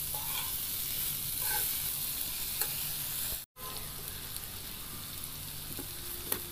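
Papaya pieces sizzling steadily in hot mustard oil in a wok, with a few light scrapes of a steel ladle stirring them in the first half. The sound drops out for an instant about halfway through.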